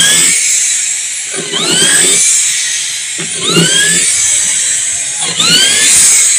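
Power drill driving screws with washers into a wooden speaker cabinet panel. Its motor whine rises in pitch each time the trigger is pulled, about every two seconds.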